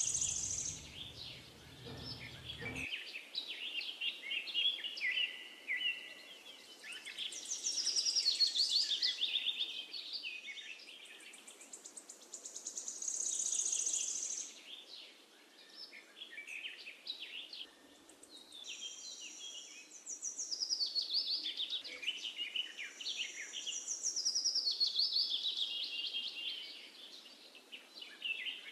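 Birds singing and chirping, with repeated rapid trills and high chirped phrases that rise and fall in bouts a few seconds long.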